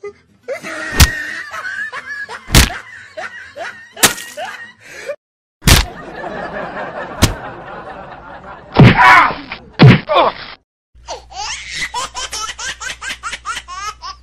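Slap and punch sound effects on a staged fight: a sharp hit every second or two, with laughter between them. Near the end comes a quick run of laughing, about five pulses a second.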